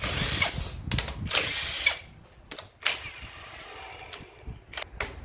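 Cordless impact wrench running bolts on the side cover of a Yamaha XJR400 engine: one long run for about the first two seconds, then several short trigger blips.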